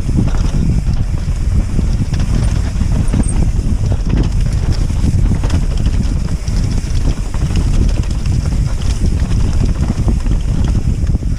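Wind buffeting the microphone over the rattle of a mountain bike descending rough dirt singletrack, with many sharp clicks and knocks from the bike and its tyres on the trail.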